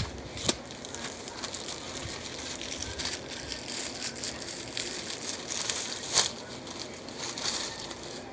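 Packaging being handled: rustling and crinkling with sharp clicks and taps now and then, the strongest about half a second in and about six seconds in.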